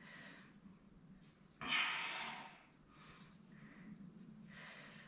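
A woman's audible breath, close to the microphone: one breath about a second and a half in that fades over about a second, and a fainter one near the end.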